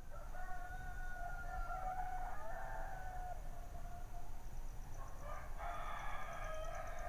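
Roosters crowing twice: one long, stepped crow in the first three seconds and another from about five and a half seconds in. Under them runs a faint steady high-pitched tone that starts to pulse near the middle.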